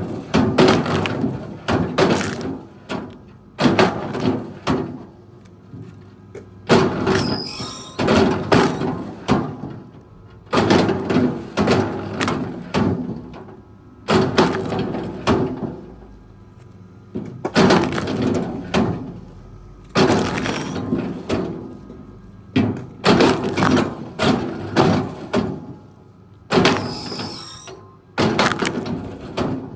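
Wood cracking and splintering again and again as a heavy machine breaks up timber, in loud bursts of a second or two every couple of seconds.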